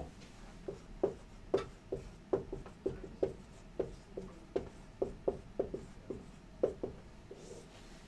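Dry-erase marker writing on a whiteboard: a quick series of short strokes, about three a second, stopping about seven seconds in.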